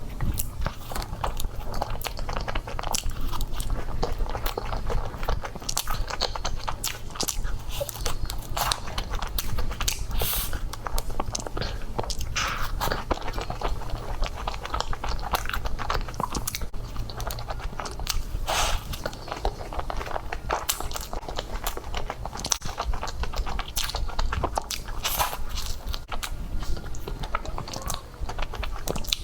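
Close-miked eating sounds of desserts: repeated bites and chewing with crisp crunches at irregular intervals.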